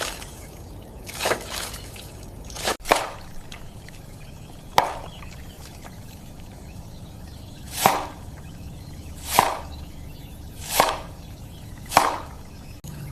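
A series of short, sharp, wet-sounding food-handling sounds, about one every second and a half, over a low steady background.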